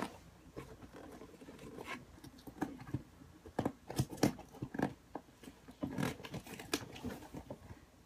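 Irregular light clicks, taps and rustles of a cardboard and plastic toy package being handled and opened by hand.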